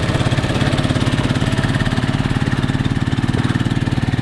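Motorcycle engine of a passenger tricycle running steadily while under way, a fast even putter, heard from inside the sidecar.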